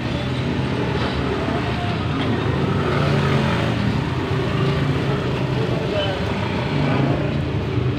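A vehicle engine running steadily close by, a low continuous rumble, with indistinct voices in the background.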